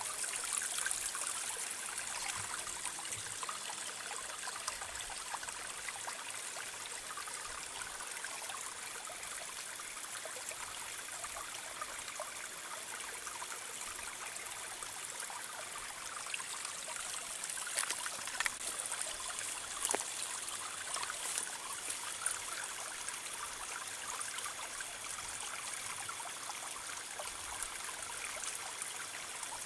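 Steady outdoor background hiss, strongest in the high range, with a few light clicks about two-thirds of the way through.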